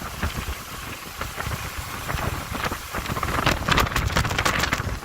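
Wind buffeting the microphone in heavy rain, with a spell of dense crackling patter from about three and a half seconds in.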